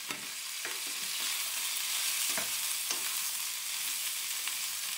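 Sliced onion, carrot, red pepper and chicken sizzling in hot oil in a frying pan, with a steady hiss. A wooden spatula stirs them, knocking or scraping against the pan a few times.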